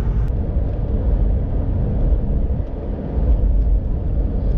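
Inside the cabin of a UAZ Patriot on the move: a steady low rumble of the vehicle driving.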